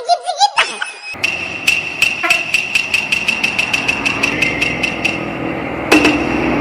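A road vehicle's engine running steadily, with sharp, evenly spaced clicks about three times a second and a sudden lower tone coming in near the end.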